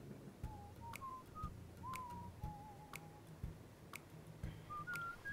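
Faint, high whistled notes: a run of short, wavering tones that climb gradually in pitch. A sharp tick sounds about once a second.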